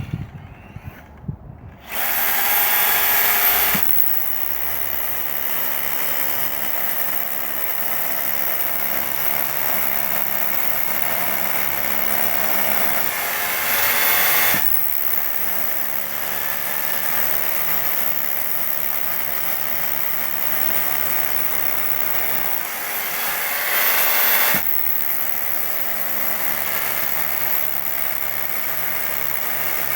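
DeWalt SDS Plus rotary hammer drilling with a 10 mm bit, hammering without a break after a few handling clicks at the start. It gets briefly louder three times, about two, thirteen and twenty-three seconds in, each time dropping back suddenly.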